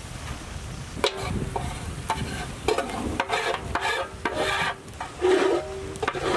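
A metal spoon or ladle scraping and knocking against a large metal cooking pot in a run of uneven strokes. Several strokes leave a short metallic ring, while rice is spread into biryani layers.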